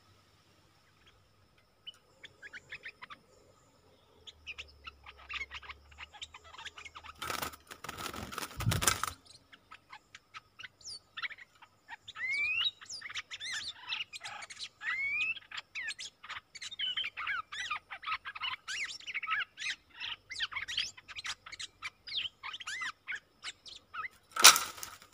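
Stripe-throated bulbuls chirping rapidly with short rising whistles: a wild bird answering a caged decoy at a trap cage. Two loud rustling bursts break in, one with a thump about eight seconds in and another near the end.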